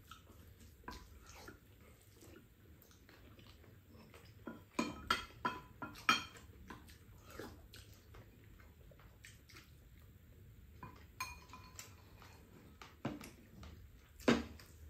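Spoons and chopsticks clinking and scraping against ceramic bowls as two people eat, in scattered short clicks. They come thickest about five to six seconds in, with the loudest clink near the end.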